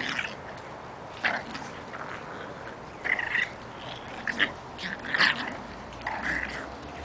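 Boston Terrier puppies play-fighting, giving short high yips and squeaks about five times.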